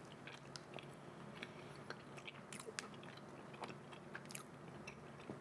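Faint chewing of a soft, flour-dusted peanut mochi, with scattered soft mouth clicks.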